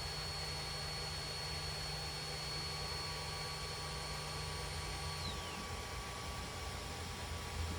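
3D printer running, with a steady fan and motor hum and a high whine that glides down in pitch about five seconds in.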